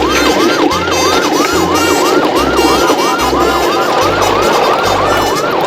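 Electronic yelp siren wailing rapidly up and down, about two and a half cycles a second, over a low pulsing beat.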